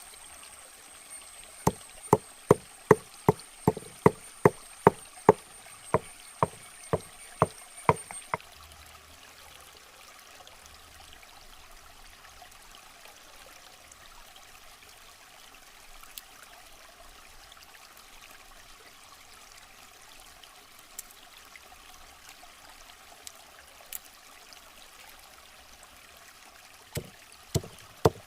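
Chopping on a wooden board: a steady run of sharp knocks, about two and a half a second, for roughly seven seconds, over a faint rushing background, with a thin high whine that stops when the chopping stops. A few lone clicks follow, and the chopping starts again near the end.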